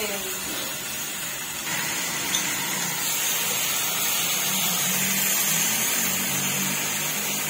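Meat sizzling on the pan of a tabletop portable gas stove grill, a steady even hiss.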